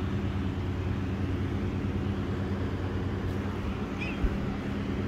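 Steady low machine hum, with a single dull thump about four seconds in.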